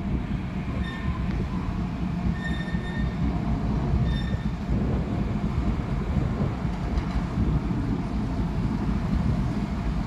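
Small diesel shunting locomotive rolling slowly along the track with a steady low engine rumble, its wheels giving three short high-pitched squeals in the first half.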